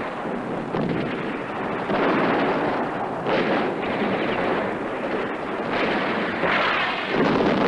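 Battle sound effects from a war film: a dense, continuous din of distant gunfire and explosions, swelling louder several times.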